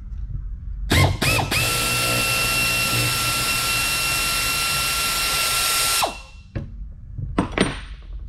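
Power tool spinning a nut off a leaf-spring pack bolt: a few short stuttering bursts about a second in, then a steady high-pitched run of about four and a half seconds that stops suddenly. A few sharp metal clinks follow near the end.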